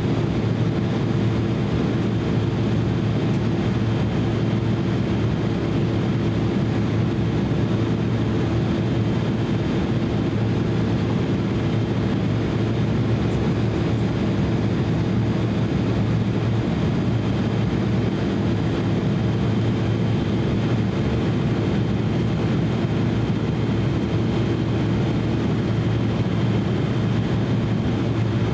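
Steady cabin drone inside an Embraer E170 airliner in flight: its two GE CF34-8E turbofan engines and airflow over the fuselage make an even rushing noise with a low, unchanging hum.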